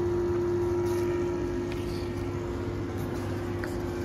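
Steady mechanical hum of a shop interior with one constant mid-pitched tone over a low drone, the kind of room tone that ventilation or air-conditioning plant gives.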